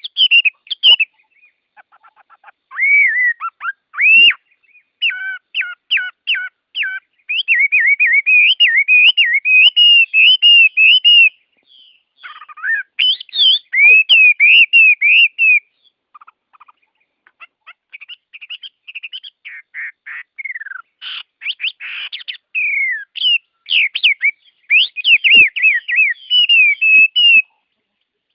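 Songbirds singing: quick runs of whistled and chirping notes, some sliding up or down in pitch, broken by short pauses. The song stops near the end.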